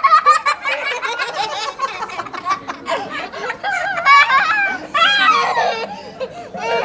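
Young children laughing: a quick run of giggles, then high-pitched, rising-and-falling bursts of laughter.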